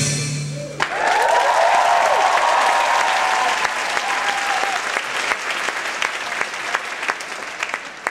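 A live audience bursting into applause with some whooping shouts as the dance music stops about a second in. The clapping gradually dies down toward the end.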